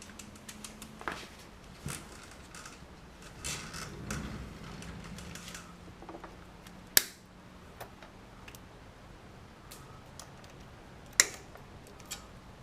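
Scattered small clicks and rattles of hands working plastic wiring connectors and pins in a cramped spot, with two sharp, louder clicks about seven and eleven seconds in. A faint steady hum runs underneath.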